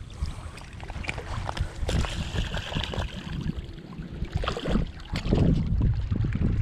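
Wind buffeting the camera microphone in a low rumble that grows louder in gusts near the end, with scattered small knocks and water splashes as a speckled trout is let go in the shallows.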